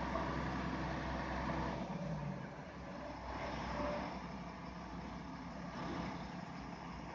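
Heavy diesel truck engine running at the concrete site, its deep rumble dropping in level about two seconds in.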